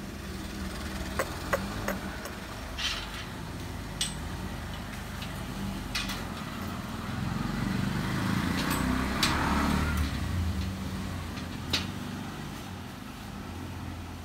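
Motor vehicle engine running, the low rumble swelling about halfway through and easing off again, with scattered sharp clicks.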